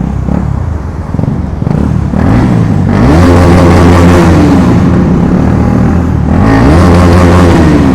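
KTM Duke motorcycle engine with its exhaust removed, revved up twice inside an underpass. Each time the pitch climbs, holds and drops back.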